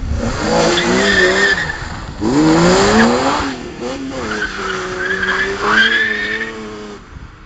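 Car engine revving hard with tyres squealing. The revs climb steeply a little over two seconds in, drop back, then hold fairly steady while the squeal rises again near the end.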